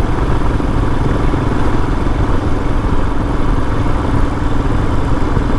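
Royal Enfield Himalayan's single-cylinder engine running steadily as the motorcycle is ridden at an even pace, over a constant low rumble of wind and road noise.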